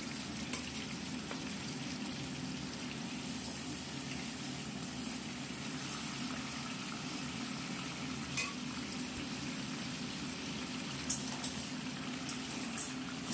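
Fish heads sizzling steadily as they fry in hot oil in a stainless steel kadai, over a steady low hum. A few light clicks of a metal spatula against the pan come as the heads are turned.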